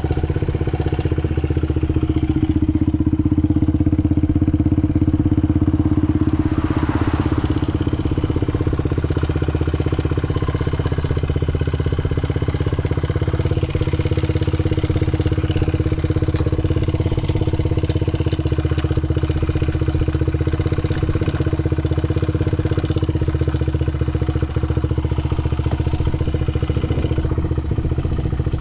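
Honda Ape 50's carbureted air-cooled single-cylinder four-stroke engine running at a steady idle, picking up a little for a few seconds early on before settling back. It runs evenly with no abnormal noise, as the seller says.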